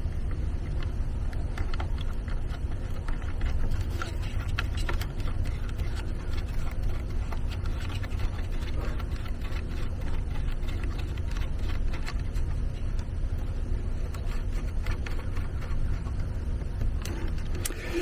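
Small plastic clicks and taps as a monitor's mirror-mount bracket is fitted and handled, over a steady low rumble.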